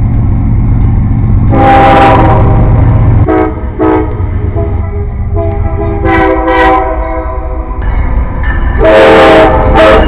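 Diesel locomotive's multi-chime air horn sounding a horn salute: one long blast, two quick short ones, then longer blasts, over the low rumble of the moving train.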